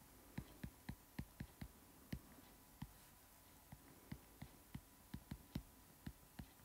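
Stylus tapping and sliding on a tablet screen while handwriting: faint ticks about three a second, with a pause of about a second near the middle.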